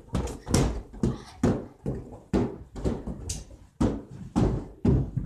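Red rubber balloons being batted by hand and bouncing: a quick, irregular series of dull thumps.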